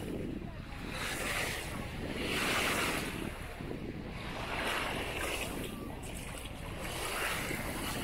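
Sea waves washing in and out, swelling and fading about every two seconds, with wind rumbling on the microphone.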